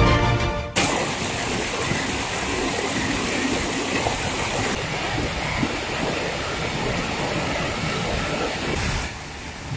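A music track cuts off under a second in. It gives way to the steady rushing of a mountain stream running over rocks and small cascades, which drops a little quieter about nine seconds in.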